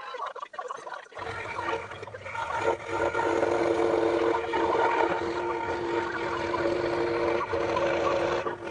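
Scroll saw running and cutting wood, a steady motor hum with a held whine that comes up about a second in.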